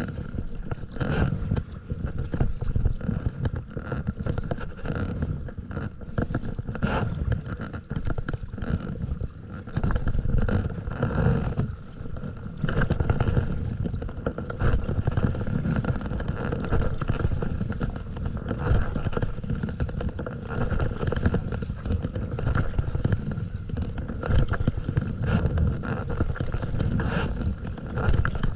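Stand-up paddleboard paddle strokes, repeated swishes and splashes of the blade in the water, with wind rumbling on the microphone.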